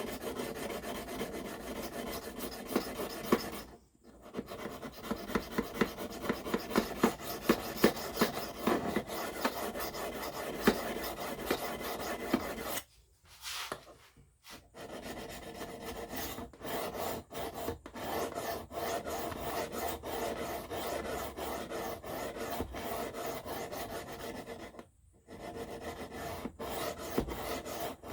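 S35VN steel knife blade being stroked by hand across a sharpening stone, a steady run of rasping strokes with short pauses about 4, 13 and 25 seconds in. The edge bevel is being reground and a burr is starting to form.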